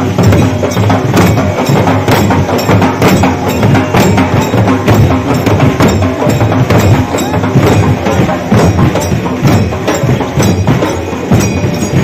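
Loud traditional percussion music: fast, dense drumming with sharp clacking strikes, played continuously.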